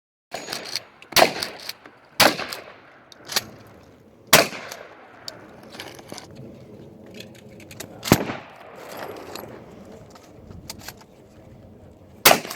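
Gunshots on a firing range: about five loud single shots at uneven intervals, each followed by a short echo, with a few lighter clicks and clinks between them.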